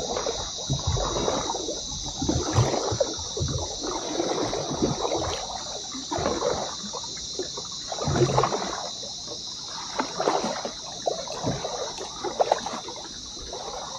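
Kayak paddle dipping and splashing in the water, strokes coming about every two seconds, over a steady high-pitched hiss.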